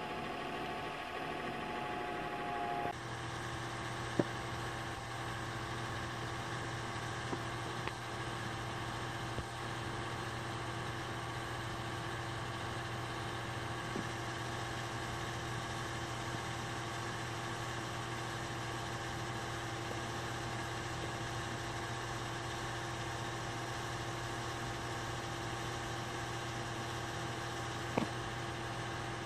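Singer 201-2 sewing machine's gear-driven potted motor running steadily, a continuous even hum. Its sound changes about three seconds in and then holds steady, with a couple of faint clicks.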